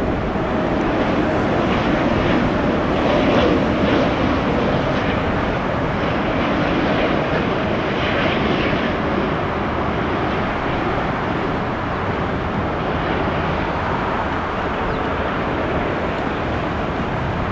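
Jet airliner engines running, a loud steady rumble that swells a few seconds in and then slowly eases.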